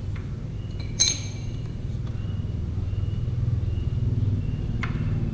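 A sharp metallic clink about a second in, and a fainter click near the end, as the metal parts of a motorcycle's rear disc brake caliper are handled by hand, with a steady low hum underneath.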